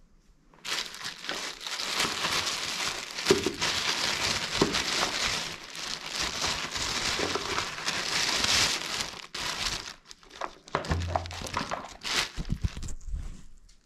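Plastic wrapping crinkling and rustling as the contents of a geocache container are handled and unwrapped. It starts suddenly just under a second in and goes on with short breaks, with a few low thumps near the end.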